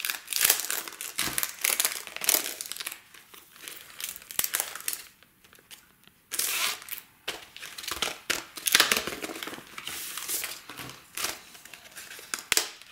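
Clear plastic packaging sleeve crinkling and rustling as it is opened and a die set on its cardboard backing is slid out, in irregular bursts with a short pause about five seconds in.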